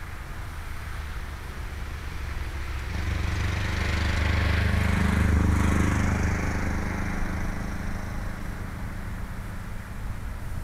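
A road vehicle driving past: a low rumble with a rushing hiss that swells about three seconds in, peaks around the middle and fades away.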